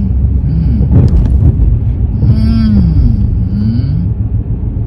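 Steady road rumble inside a moving car's cabin. About halfway through, a person's long wordless vocal sound slides up and then down, twice.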